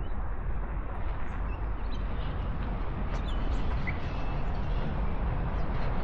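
Wind rumbling steadily on the camera microphone, with a few faint, short bird chirps above it.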